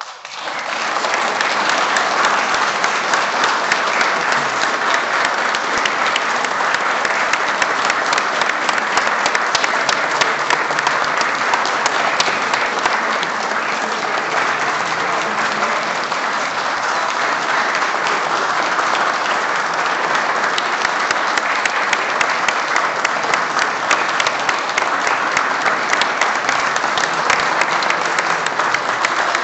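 An audience applauding: dense, steady clapping that breaks out suddenly.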